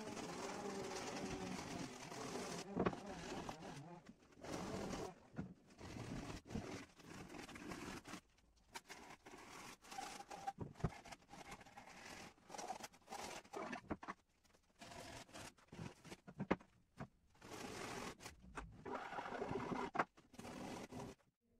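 Sandpaper rubbed by hand over the curved wooden handle of a walnut and pine cutting board: irregular scratchy strokes of uneven length with short pauses between them.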